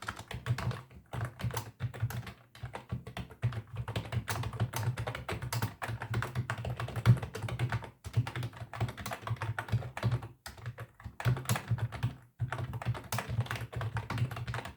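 Typing on a computer keyboard: rapid key clicks in quick runs, broken by short pauses a few times.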